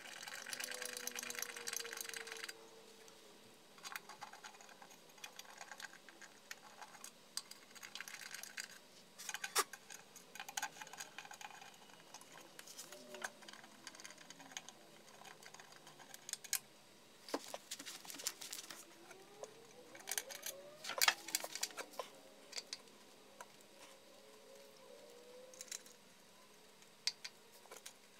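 Hands handling the oil pan under a BMW E46 330i: a rustling scrape through the first two and a half seconds, then scattered light metallic clicks and taps, with the sharpest ones around ten and twenty-one seconds in.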